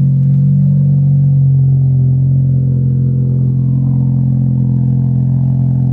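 2015 Honda Civic Si's 2.4-litre four-cylinder engine idling steadily and evenly, loud through its exhaust.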